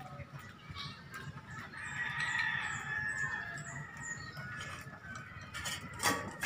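A chicken calls in the background, a held call about two seconds in, with small high bird chirps over it. Near the end a dog's steel food bowl clinks sharply as the dog eats from it.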